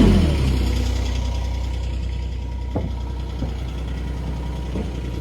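Engine of a Kubota mini skid steer dropping from higher revs to a steady idle just after the start, with a few faint knocks later on.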